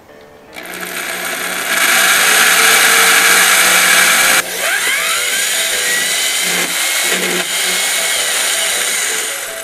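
Electric drill boring through the sheet-metal wall of a water heater cabinet, the bit lubricated with mineral oil. The grinding cuts off sharply about four and a half seconds in as the bit breaks through the metal, then the drill runs on with a rising whine.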